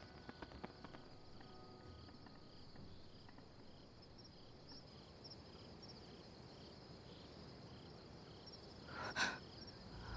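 Faint night ambience of crickets chirping, about two chirps a second over a steady high insect drone. A few light clicks near the start and a short soft swell about nine seconds in.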